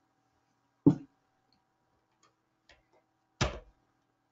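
Two sharp clicks about two and a half seconds apart, the second a little longer, with a few faint ticks between them over a faint steady hum.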